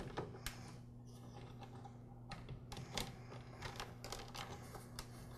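Faint, irregular light clicks and ticks of insulated wires being pressed and slid into the plastic routing tabs of a miter saw's replacement handle, over a steady low hum.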